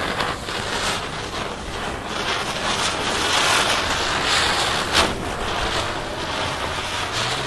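Chakri (ground-spinner firework) spinning and spraying sparks, a steady rushing hiss that swells in the middle, with one sharp crack about five seconds in.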